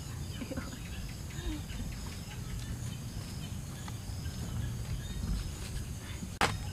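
Outdoor rural ambience of steadily buzzing insects over a low rumble, with a few faint puppy whimpers in the first couple of seconds and one sharp knock near the end.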